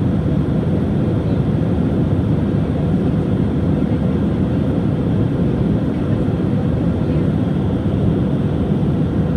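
Steady cabin noise of an Airbus A319 in flight: an even, low rush of jet engines and airflow heard from inside the passenger cabin.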